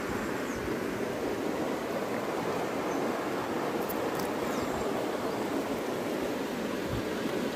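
Small creek flowing: a steady rush of water, with a few faint ticks about four seconds in.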